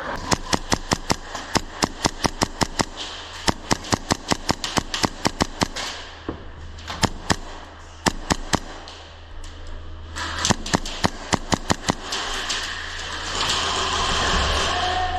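Airsoft guns firing in quick strings of sharp shots, about four to five a second, in three runs with short pauses between them. A steadier noise takes over near the end.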